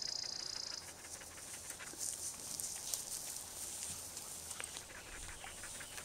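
Norwegian Elkhounds panting in quick, even breaths, a few a second.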